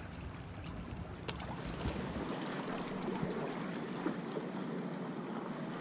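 Steady wash of wind and small waves lapping at the jetty rocks, with a single click about a second in. The low rumble drops away a little after two seconds in.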